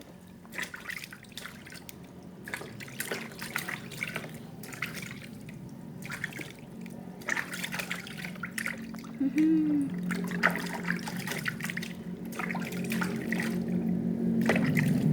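Water splashing and pouring in irregular bursts while a small child is washed at bath time, over a low steady hum that grows louder toward the end. A short squeak comes about nine and a half seconds in.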